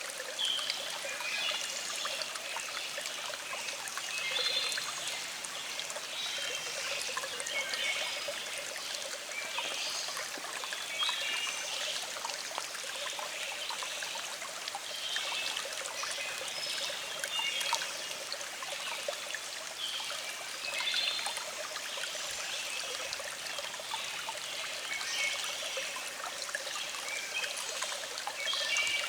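Small stream trickling and gurgling steadily over rocks.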